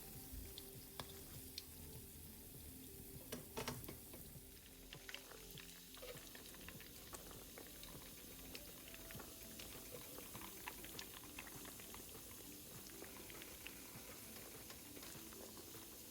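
Breaded potato balls deep-frying in oil: faint bubbling with scattered small crackles and pops, a few louder ones about three and a half seconds in.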